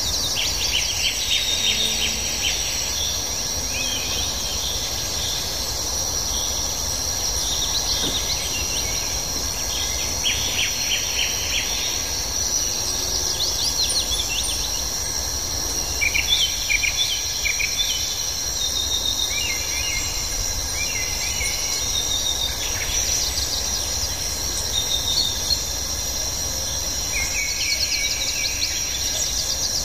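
Steady high-pitched drone of tropical forest insects, with short bursts of rapid bird chirping every few seconds.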